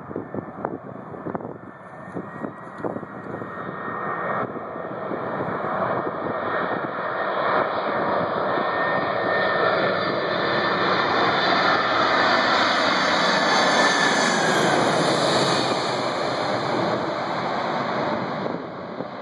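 Boeing 747 jet engines on landing approach, passing low overhead. The rumble swells over the first several seconds to a loud peak with a high whine, then a tone in it drops in pitch as the airliner passes, and it eases off near the end. Wind gusts knock on the microphone at first.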